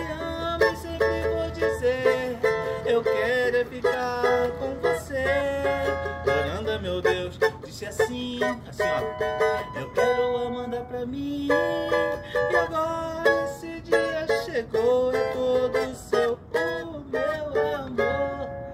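Cavaquinho strummed in a quick pagode rhythm through an instrumental passage, chords stepping from one to the next.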